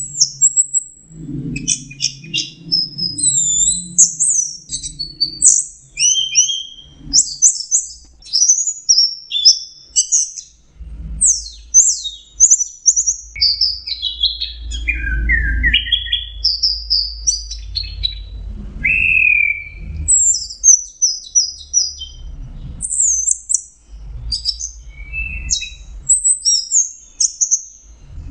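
Orange-headed thrush singing a long, unbroken song of quick, varied high whistled phrases, many of them sliding down in pitch.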